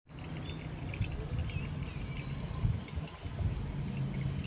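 Outdoor garden ambience: a steady, high-pitched insect drone over a louder, uneven low rumble, with a few faint chirps in the first second or so.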